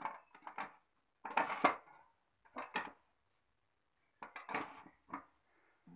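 Hard plastic clicking and clattering as mixer attachments are fitted into the plastic accessory holder of a Bosch MUM4880 kitchen machine, in four short bursts of knocks.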